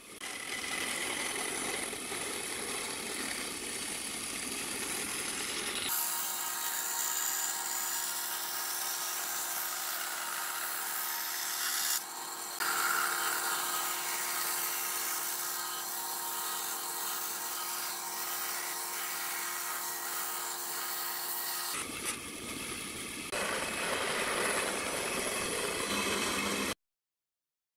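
Power saws, including a band saw, running and cutting wood in a string of short clips. The machine sound changes abruptly at each cut and stops suddenly near the end.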